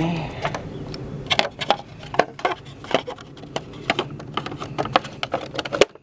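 Irregular plastic clicks and taps from a Jeep ZJ's underhood relay box as the wiper relay is pressed back into its socket and the box's plastic cover is handled, about a dozen over a steady low hum.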